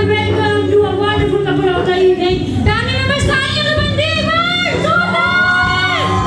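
A song playing: a woman's high voice singing a melody over steady backing music, with long held notes near the end.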